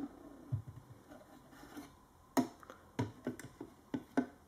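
Light plastic clicks and taps from a Play-Doh dentist playset being handled, about seven in quick succession in the second half as its hinged plastic jaw is lifted open.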